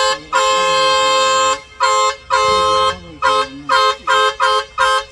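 Truck horn honking at a wild elephant standing in the road: one long blast, then about seven short toots in quick succession.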